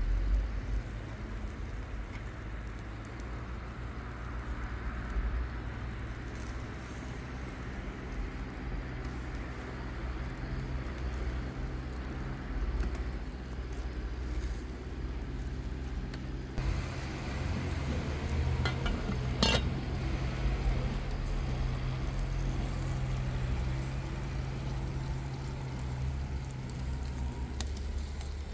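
Chicken kebabs sizzling over glowing wood embers, the fire crackling faintly over a steady low hum. A few sharp clicks come about two-thirds of the way through.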